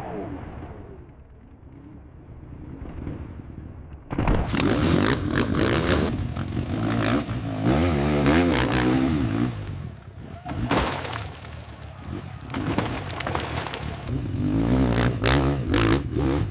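Hill-climb motorcycle engine revving hard, its pitch rising and falling with the throttle, with clattering and scraping. The sound is muffled and quieter for the first four seconds, then louder and fuller from about four seconds in.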